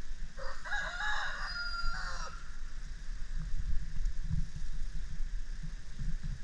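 A rooster crowing once: a single cock-a-doodle-doo of about two seconds, starting about half a second in, over a low rumble.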